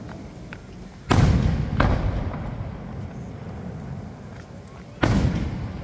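Aerial firework shells bursting overhead: three loud bangs, two close together about a second in and one near the end, each trailing off in a short echo.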